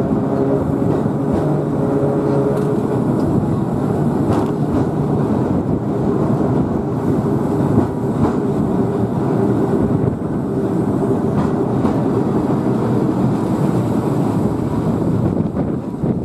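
Heritage electric tram running along its track, heard from on board: a steady rumble of wheels and running gear, with faint motor tones fading out in the first two seconds and occasional clicks from the wheels on the rails.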